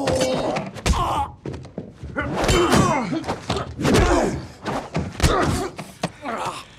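Fight sound: a string of heavy thuds and knocks as blows land with a hard-shell briefcase and bodies hit the walls, mixed with short grunts and groans from the fighters.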